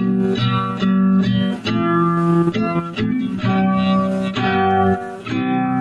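Instrumental break in a song: a guitar picking a melody note by note over lower bass notes, with no singing.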